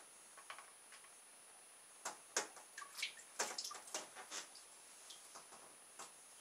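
Faint, irregular water drips, small splashes and clicks as a syringe draws bathwater and squirts it into a pop-pop boat's copper-coil boiler to prime it. The sounds cluster in the middle of the stretch.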